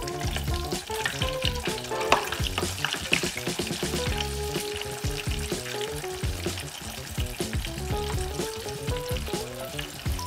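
Battered gar fillets deep-frying in a saucepan of hot oil: a dense, continuous crackle and sizzle of bubbling oil. Background music with a melody and a pulsing bass plays over it.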